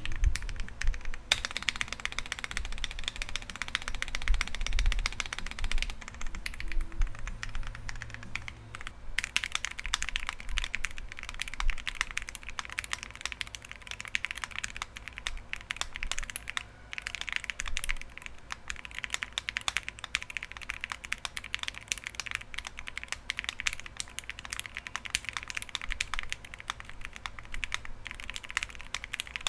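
Continuous typing on a CL60 mechanical keyboard fitted with Akko Rosewood switches (nylon stems, rails bottoming out) on a gummy O-ring mount: a dense run of key clacks. The sound changes abruptly about a second in and again about nine seconds in.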